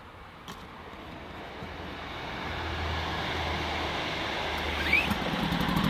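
Loncin 2000i inverter generator's small single-cylinder four-stroke engine running just after its first pull-start on choke. Its steady low hum grows louder, with a short squeak about five seconds in.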